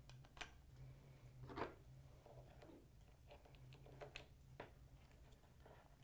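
Faint plastic clicks and rattles of blue MC4 spanner tools turning and tightening a solar connector's end cap. A handful of separate clicks, the clearest about one and a half seconds in and around four seconds in.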